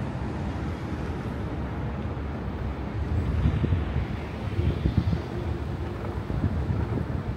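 Street traffic rumbling past on a busy boulevard, with wind buffeting the microphone; the rumble swells a little about halfway through.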